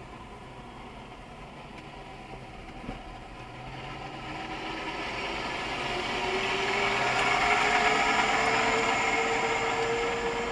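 A fire truck driving past close alongside, heard from inside a car: its engine and road noise swell to a peak as it draws level, with a slowly rising drone.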